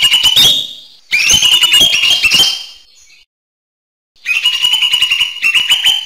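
Lesser green leafbird (cucak hijau mini) singing loud, fast chattering phrases of rapid harsh notes: one at the start, a second about a second in, and a third after a pause of about a second and a half.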